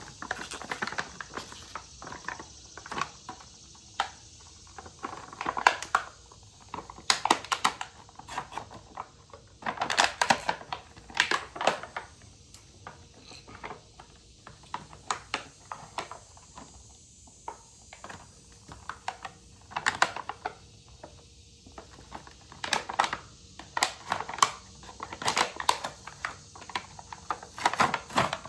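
Clicks, taps and light rattles of small lawnmower parts being handled, in short bursts a few seconds apart, as a new air filter is fitted into its housing.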